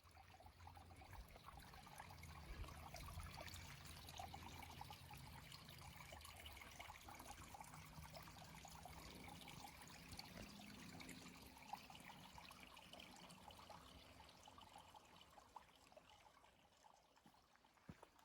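Faint trickling water, with a low steady hum underneath that fades away a little over halfway through.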